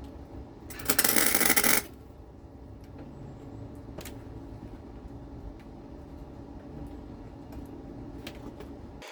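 A cheap wire-feed welder striking an arc once, a crackling burst of about a second near the start: a tack weld on a steel patch. A low steady hum runs underneath, with a few faint clicks.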